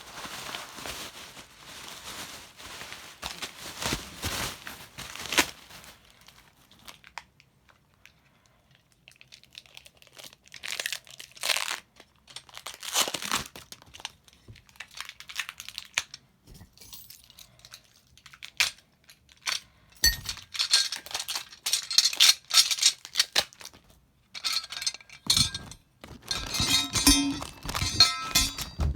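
Packing material crinkling and tearing in irregular bursts as ceiling fan blade brackets are unwrapped, with occasional sharp handling clicks.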